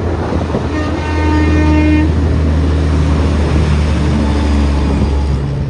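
Heavy truck's diesel engine running with a loud, steady deep rumble that eases just before the end. A horn sounds once for about a second, shortly after the start.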